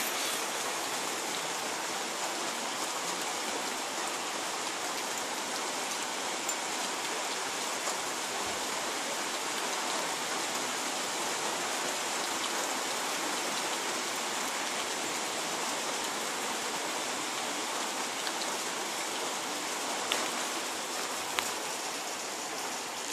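Steady heavy rain falling, an even hiss, with two brief sharper taps near the end.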